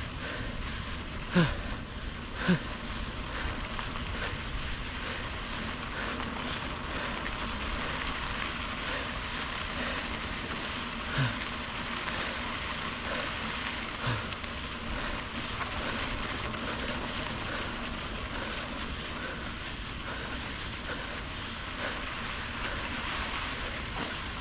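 Steady wind and road noise of a bicycle ride, with a few short knocks, two of them close together in the first few seconds.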